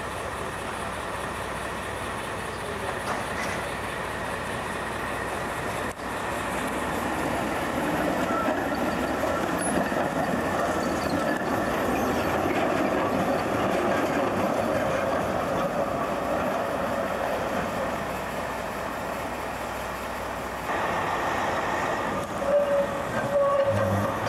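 Street trams passing on track: a steady rolling rumble of steel wheels on rail that grows louder about a third of the way in as a tram runs by close. There are a few faint, brief wheel squeals.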